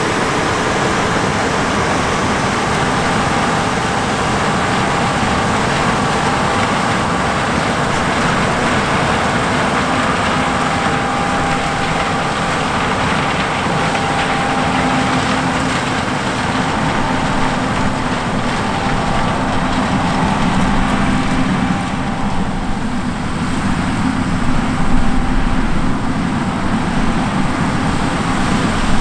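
John Deere S780 combine running steadily while harvesting corn through a 616C 16-row chopping corn head: a continuous machine drone with a few faint steady whines, a little louder and more uneven near the end.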